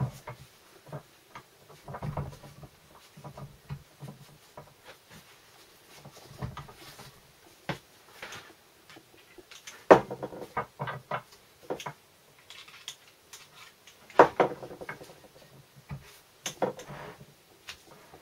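Metal parts being handled and fitted inside a Land Rover Series 3 gearbox: scattered clicks, clinks and knocks, the loudest about ten seconds in and again about fourteen seconds in.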